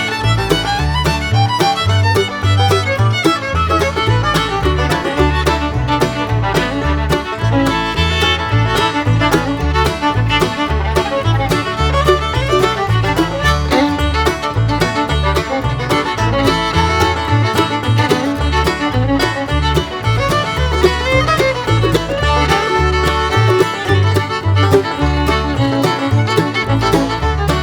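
Background music: fast, upbeat fiddle and banjo tune in a bluegrass style with a steady bass beat.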